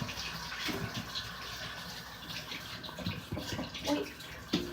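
Water running from a tap while hands are washed under it.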